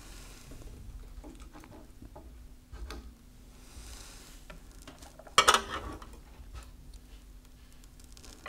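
Small clicks and scrapes of a metal dissecting needle against a glass watch glass as a stained onion peel is picked out of it, with one sharp glassy clink a little over five seconds in.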